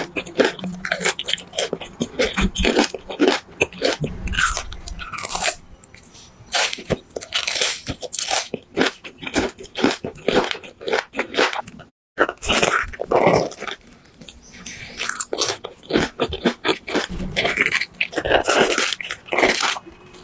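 Close-miked chewing and biting of jelly and gummy candy: a rapid run of wet mouth clicks, smacks and crunches, broken by a short silent gap about twelve seconds in.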